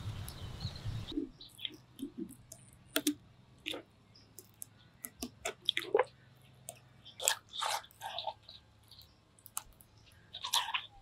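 Bare hand scooping thick wet batter out of a stone grinder bowl, irregular soft squelches and scrapes of fingers on wet stone. A louder steady noise in the first second cuts off abruptly.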